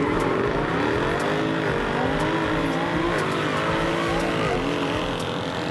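A performance car engine accelerating hard through the gears: its pitch climbs steadily, then drops back at an upshift about every second and a half, three times.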